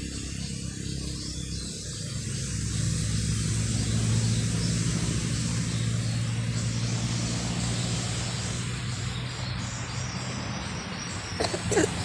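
A distant motor's steady low drone, louder from about two seconds in. Near the end comes a brief sharp sound, the loudest moment.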